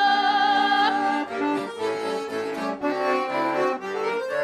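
Russian folk song: women's voices hold the last sung note of the verse, then an accordion plays the interlude over a moving bass line.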